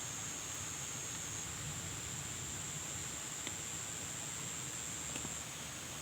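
Steady high-pitched insect drone, a continuous buzz that steps slightly in pitch a couple of times, over a low steady rumble, with a few faint clicks.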